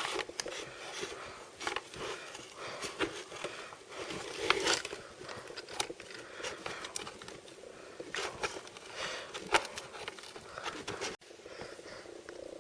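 Hands handling toy blind-box packaging: crinkling plastic and foil with scattered sharp clicks and taps.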